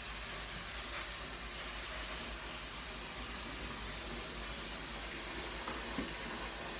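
A steady, even hiss, with a couple of faint knocks near the end.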